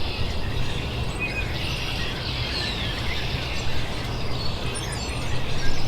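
Small birds chirping faintly now and then over a steady low background rumble.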